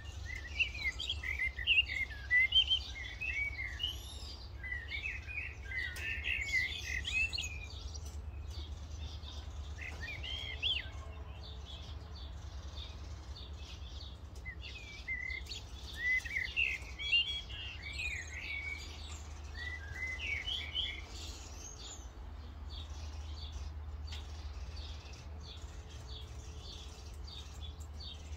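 Small wild birds chirping and twittering in quick bouts of short notes, thinning out over the last several seconds, over a steady low background rumble.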